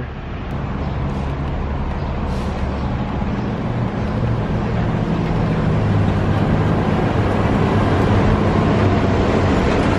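Walt Disney World Mark VI monorail train running along its elevated concrete beam and passing overhead: a steady rushing noise with a low hum that grows louder as it comes nearer and is loudest as it goes by directly above in the second half.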